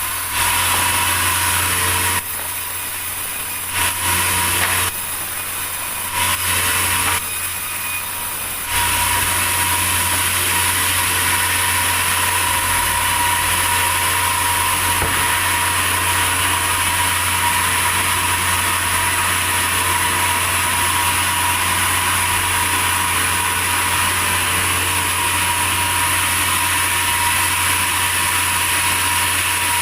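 Sawmill saw cutting through a large durian log, a steady hiss of cutting noise over the constant hum of the mill's engine. The cut drops back a few times in the first nine seconds, then runs on steadily.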